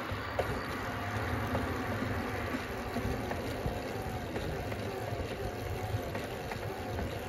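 Steady wind rush and tyre noise from a bicycle rolling along a paved road, with a low rumble and a faint wavering whine.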